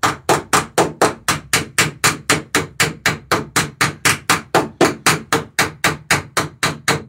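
Hammer striking rivets in the wooden planking of a dory, riveting the plank laps at the bow. The blows come in a fast, even rhythm of about four a second, each a sharp knock with a short ring.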